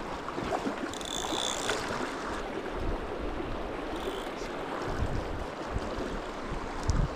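Swift river water rushing over rocks, a steady even noise, with a couple of brief high chirps and some low rumbling near the end.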